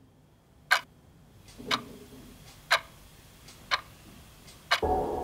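Quartz wall clock ticking once a second, the ticks sharp and evenly spaced over a faint rising swell. Near the end a deep low hit with a held tone comes in as music starts.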